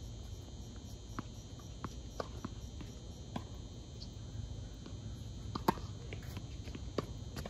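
Steady chirring of night insects, with scattered sharp knocks of tennis balls bouncing and being struck on a hard court, the loudest about six seconds in.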